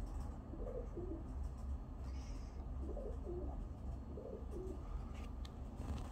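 Pigeons cooing: three low, two-part coo phrases about a second and a half apart, over a steady low rumble.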